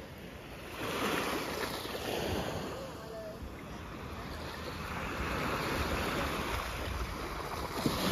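Small waves lapping and washing up onto a sandy shore, each wash swelling and then falling away over a second or two.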